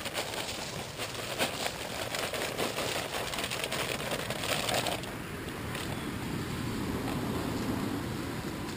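Shelled corn pouring from a feed bag onto bare ground, the kernels hitting in a dense patter of small clicks. About five seconds in it turns to a softer, lower rustle as the pour eases and the bag is handled.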